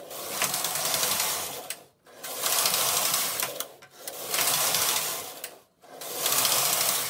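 Silver Reed punchcard knitting machine carriage pushed back and forth across the needle bed four times while knitting lace. Each pass is a rasping clatter of needles and cams lasting under two seconds, with short pauses between passes.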